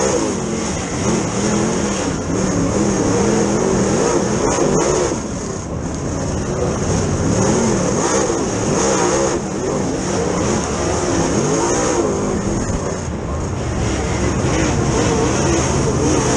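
Dirt Super Late Model race car's V8 engine heard from inside the cockpit, revving up and backing off over and over as the car races through the turns. A steady high whine runs underneath.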